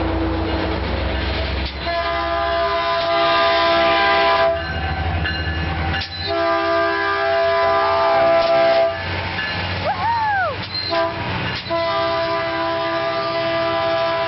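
Locomotive air horn sounding three long blasts, a few seconds apart, over the low rumble of a passing train that fades out partway through.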